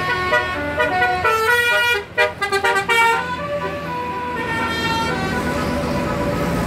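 A bus's telolet horn plays a tune of short notes that step from pitch to pitch, with a quick run of staccato notes about two to three seconds in. The tune dies away after about five seconds, leaving the steady hum of a running vehicle.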